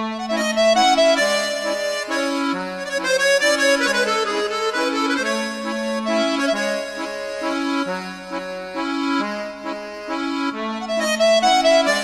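Instrumental background music with a melody over a regular, stepping bass line.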